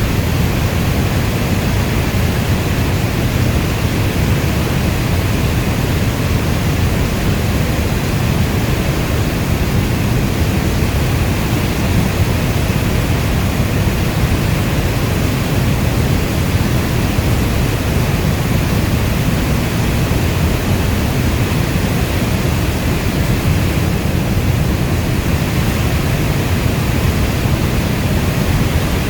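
Steady rainstorm: an even, unbroken rushing of rain, deepest and strongest in the low range, with no thunder or separate drops standing out.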